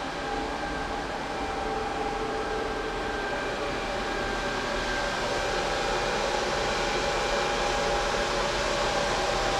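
Steady whir of electric cooling fans, with a constant high whine over the rushing air.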